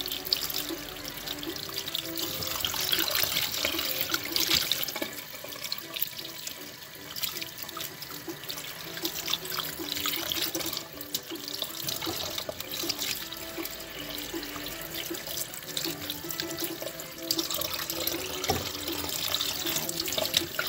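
Tap water running into a stainless steel sink and splashing over raw meat in a plastic bowl as it is rubbed and turned by hand, washing the meat.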